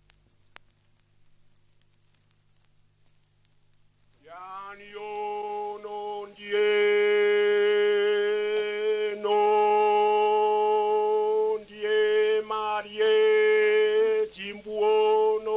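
Near silence with a couple of record clicks, then about four seconds in a traditional Papua New Guinea chanted song begins: a voice scoops up into long held notes, broken by short pauses.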